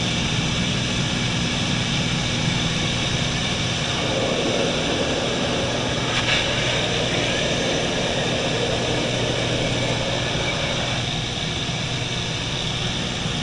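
An engine running steadily: a constant drone with a low hum under it, unchanging throughout.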